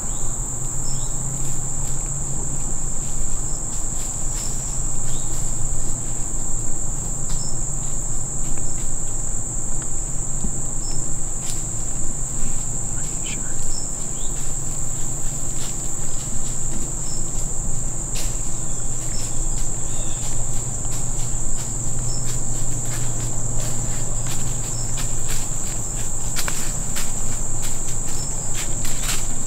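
Steady high-pitched insect chorus of woodland crickets, unbroken throughout, with scattered soft clicks and leaf rustles and a low hum underneath.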